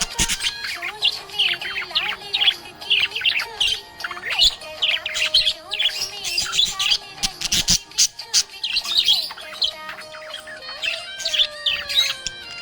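Budgerigar chirping in a quick, dense run of short high chirps and warbles, with a brief lull near the end, over soft background music.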